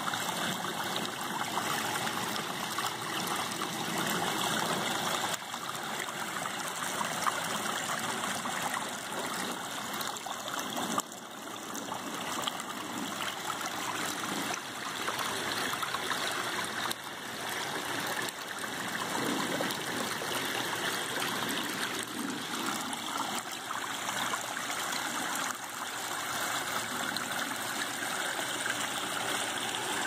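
Steady rushing and trickling of water over the stone waterfalls and shallow rocky stream of a backyard pond.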